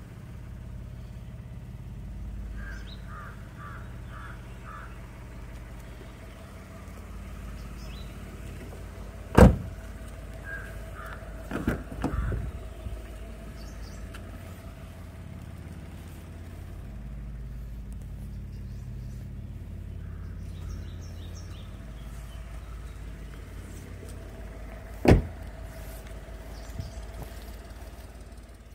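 Toyota Vitz's 1KR three-cylinder 1.0-litre engine running with a steady low hum, broken by two sharp loud knocks, about a third of the way in and near the end, and a short clatter of knocks in between.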